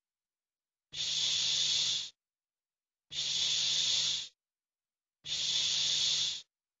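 A voice making the voiceless 'sh' sound /ʃ/ on its own, three times, each a hushing hiss of about a second with short silent gaps between.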